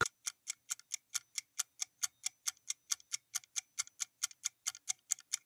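Clock-like ticking of a quiz countdown-timer sound effect: quick, even ticks, about four to five a second, counting down the answer time.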